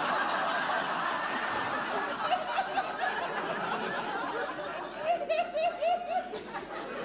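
Theatre audience laughing together, the laughter slowly thinning toward the end.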